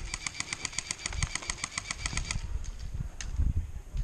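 Airsoft M4A1 electric rifle firing one full-auto burst of about two and a half seconds, roughly ten shots a second, then stopping.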